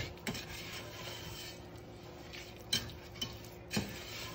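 Wooden spoon stirring a thick, grainy sugar and corn-syrup mixture in a stainless steel saucepan, scraping quietly, with a few sharper knocks of the spoon against the pan.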